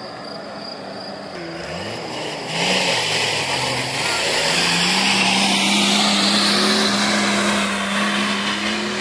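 An off-road 4x4's engine revving hard. It gets much louder about two and a half seconds in and is then held at a steady high pitch, with a few rising revs near the end.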